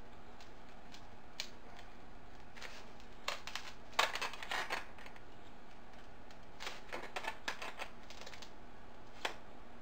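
Handling noises: short clicks and scratches in irregular clusters as stiff wire is worked by hand through a foam pool noodle, over a steady low hum.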